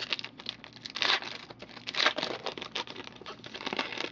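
Foil trading-card pack wrapper being torn open and crinkled in the hands, with two louder rustling tears about a second and two seconds in, among lighter crackling.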